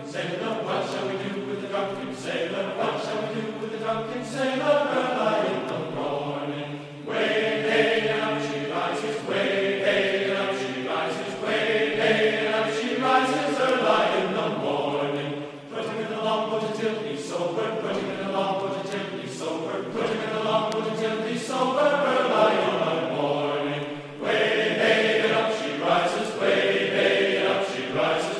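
Choral chant on a music soundtrack: several voices singing together in long phrases, each breaking off after about eight seconds.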